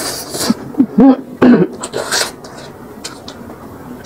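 A person making a few short wordless vocal sounds and sharp hissing breaths while eating very spicy food, reacting to the chilli heat.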